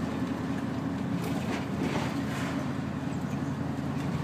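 Neoplan N116 Cityliner's Mercedes V8 diesel engine running steadily under way, heard from the driver's seat as a low, even drone.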